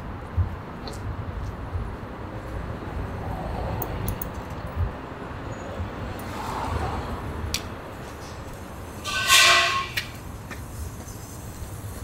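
Low, uneven outdoor rumble with a few soft knocks; about nine seconds in, a short, loud horn toot lasting about half a second.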